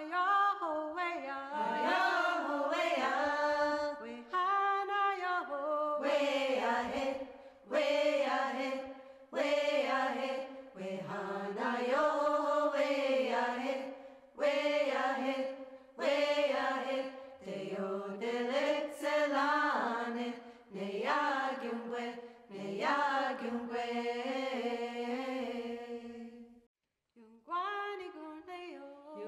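Unaccompanied singing, a chant-like song sung in long held phrases with short pauses between them, breaking off briefly near the end and then going on.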